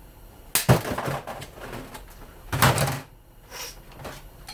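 Two loud metallic clatters about two seconds apart, with lighter knocks between them, from the steel parts of a small electric motor being handled during its teardown.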